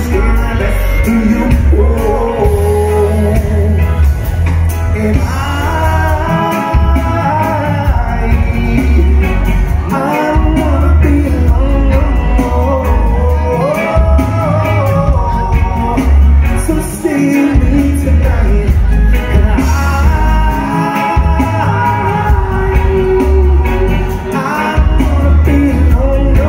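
Live rock band playing: a sung lead vocal over electric guitars, bass guitar and drums, loud and heavy in the bass.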